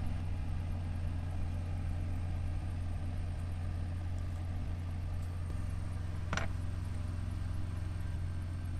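Steady low machine hum like an idling engine, unchanging throughout, with a single short tap about six seconds in.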